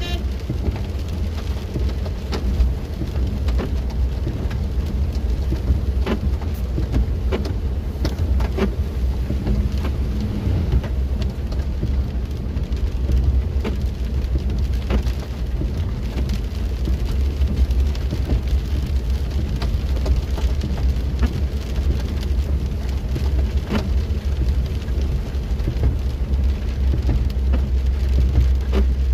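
Rain pattering on a car's windscreen over the steady low rumble of the car driving on a wet road, heard inside the cabin, with scattered sharp ticks of drops hitting the glass.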